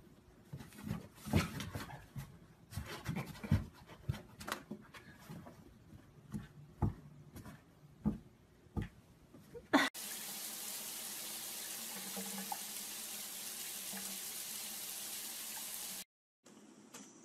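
Irregular taps, knocks and scratches of a cat's paws on a cardboard box as it bats at a white object poking up through a hole. About ten seconds in, this cuts to a steady hiss that lasts about six seconds and stops suddenly.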